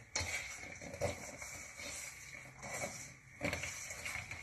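Hands mixing and squeezing wet flour dough in a stainless steel bowl: irregular scuffling with a few soft knocks against the bowl.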